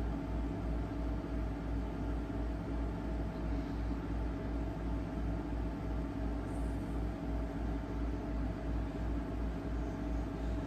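Steady low mechanical hum, with a deep throb pulsing about three times a second beneath it.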